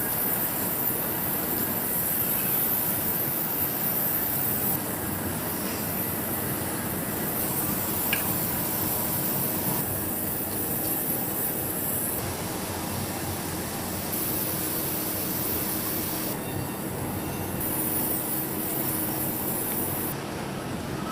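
Steady din of factory machinery running, with a low hum. A high hiss switches on and off every few seconds, and there is a single short click about eight seconds in.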